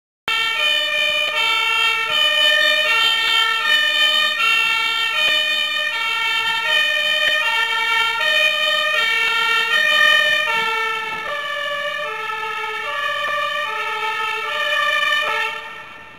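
Fire engine's two-tone siren alternating between a high and a low note, each held about half a second. It drops sharply near the end.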